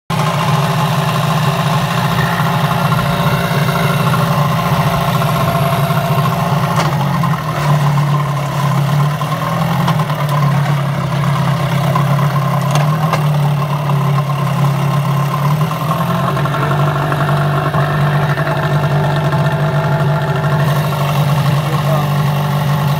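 Johnson 8 hp Sailmaster two-stroke outboard motor idling steadily in a test barrel of water, its pitch shifting slightly a couple of times.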